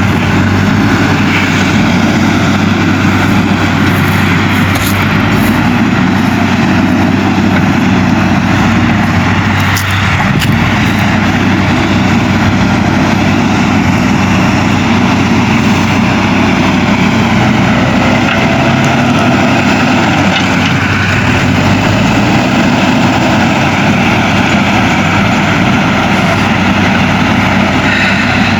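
JCB 3DX backhoe loader's diesel engine running steadily while digging, with a few short clicks around four to five seconds in and about ten seconds in.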